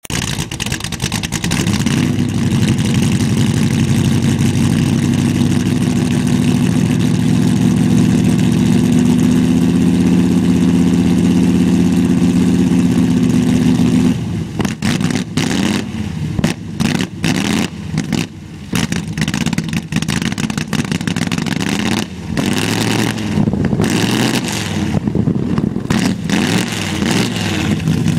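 An engine running steadily, then revved up and down in short, uneven bursts from about halfway on.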